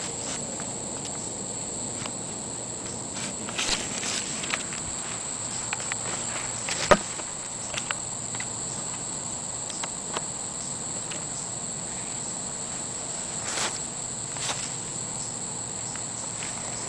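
Steady high-pitched chorus of crickets or similar insects, with scattered clicks and rustles as the handheld camera is moved through the plants; the loudest is a single sharp knock about seven seconds in.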